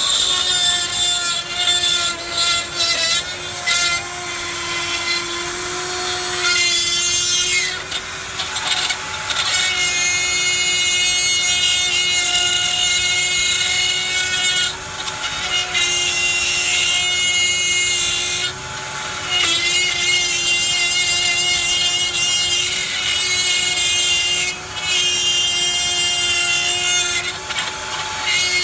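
Handheld power tool running under load on metal, a steady motor whine with a rasping cutting or grinding noise that changes and drops out every few seconds as the tool bites and eases off.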